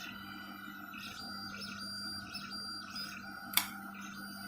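3D printer running mid-print: a steady hum with short, high-pitched stepper-motor whines that start and stop as the print head moves, and one sharp click about three and a half seconds in.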